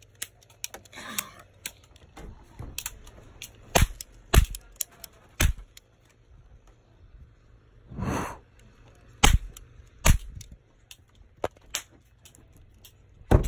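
Toy cap guns firing: scattered sharp cracks at uneven intervals, the loudest about four, four and a half, five and a half, nine and ten seconds in, with fainter clicks between. A brief rushing noise sounds about eight seconds in.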